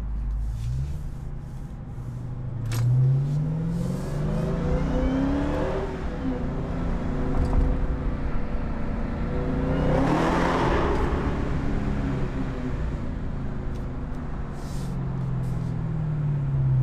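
2020 Dodge Charger SRT Hellcat Widebody's supercharged 6.2-litre V8 on its stock exhaust, driving off and accelerating, its pitch rising several times and falling back in between. About ten seconds in there is a louder, rushing swell.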